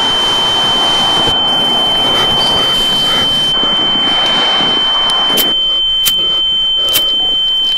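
A loud, steady high-pitched ringing tone held over a dense rushing hiss, with three sharp clicks in the last few seconds.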